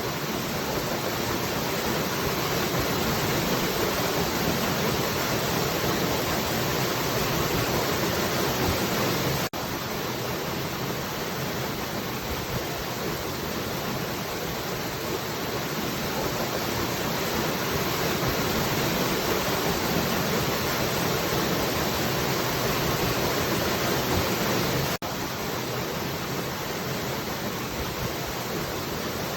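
Falling water, a steady, even rushing. It drops out for an instant twice, once about a third of the way in and again near the end.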